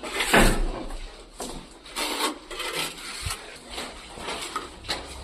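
Repeated rasping strokes of a hand file or abrasive rubbing on a hard surface, uneven in pace, the loudest about half a second in.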